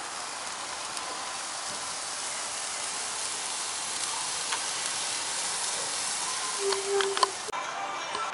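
Steady hiss and sizzle from inside an open vertical smoker with a spice-rubbed roast cooking on the grate, with a few light clicks near the end. It cuts off suddenly about a second before the end.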